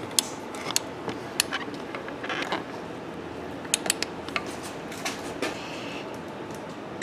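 Scattered light metallic clicks and creaks from a torque wrench and socket being pulled slowly against the harmonic balancer bolt as it is torqued down to 240 ft-lb, over a steady low hiss.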